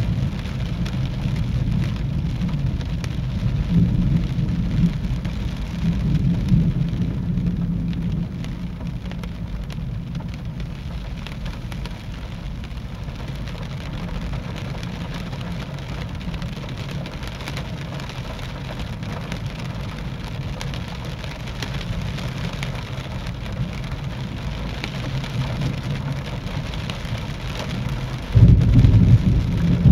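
Rain falling steadily through a thunderstorm, with thunder rumbling. The thunder rolls through the first several seconds and fades, then a loud rumble breaks in suddenly near the end.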